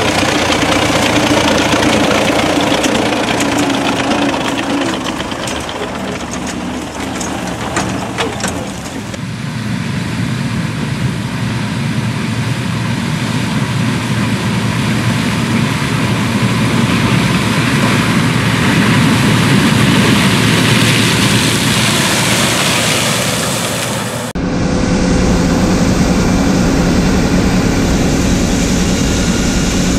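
Diesel engine of a Belarus MTZ tractor running as it pulls a grain trailer over corn stubble, with scattered crackles. About nine seconds in this gives way to a John Deere 2266 Extra combine harvesting corn, its engine running steadily. Near the end the sound changes suddenly to the combine running while its unloading auger pours shelled corn into a trailer.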